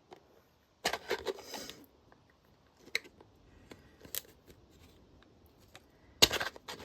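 A plastic lid and diamond painting tray clicking, scraping and knocking as the lid is pressed and turned against the tray, which it does not fit. There is a scraping clatter about a second in, a few single clicks, and the loudest knocks near the end.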